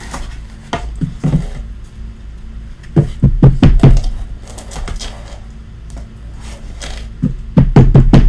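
Cardboard trading-card boxes and hard plastic card cases being handled and set down on a tabletop: dull knocks and thumps in two clusters, about three seconds in and again near the end.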